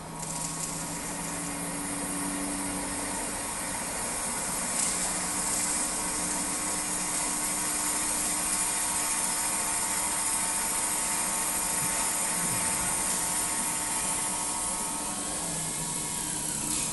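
CNC drilling head's spindle motor running as the drill bores into a metal plate: a steady mechanical whine with a high hiss, coming in at the start and holding on.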